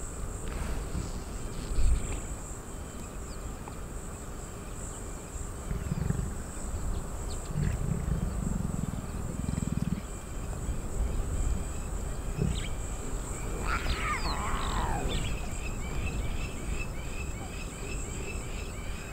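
Lioness giving low growling grunts, several in a row about six to ten seconds in, over a steady high insect buzz. A single falling high-pitched call comes about fourteen seconds in, followed by rhythmic chirping near the end.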